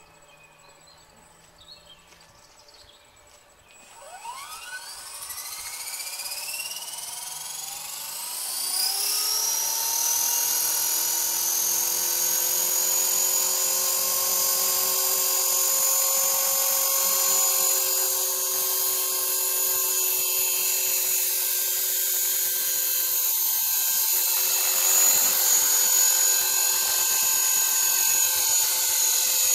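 Radio-controlled model helicopter spooling up. Its motor and rotor whine rises steeply in pitch from about four seconds in, then settles into a steady high whine at flying speed.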